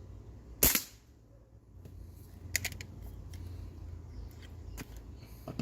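A single shot from a CO2-powered 6 mm airsoft break-open target pistol (Hwasan, a Thompson Contender replica): one sharp crack under a second in, followed later by a few faint clicks.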